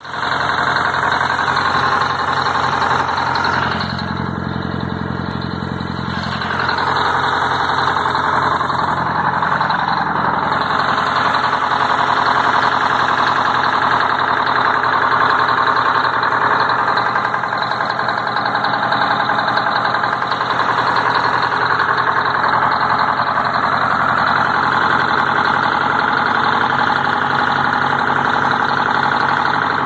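Detroit Diesel 4-71 two-stroke diesel engine idling steadily. It dips a little in loudness about four seconds in and comes back up about two seconds later.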